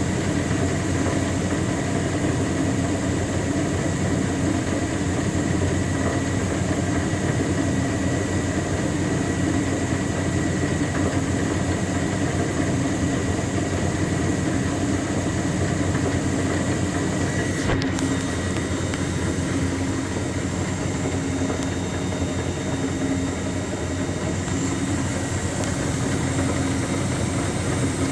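Speed Queen TR-series top-load washer running with a continuous loud clunking and rattling from the drive, caused by play in the drive pulley after its pulley nut worked loose. One sharp click stands out about two-thirds of the way through.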